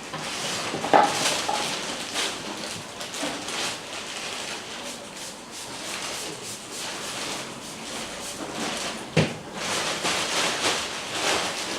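Irregular rustling, clicking and scraping of small craft materials being handled at a table, with a sharper knock about a second in and another about nine seconds in.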